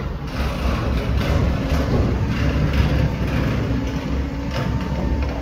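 Garbage truck engine running with a heavy low rumble, with irregular clattering over it.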